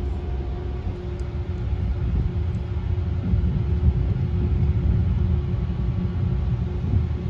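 S-Bahn commuter train running along the track: a steady low rumble with a constant hum over it.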